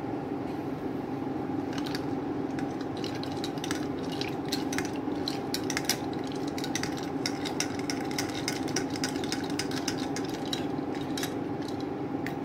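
Metal spoon stirring a milky avocado drink in a glass mug, clinking against the glass in quick repeated taps that start about two seconds in, over a steady background hum.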